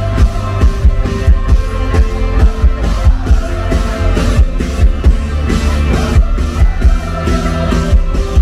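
Live rock band playing loud through a PA system: drums keeping a steady beat under electric guitars, bass and keyboards, heard from the crowd.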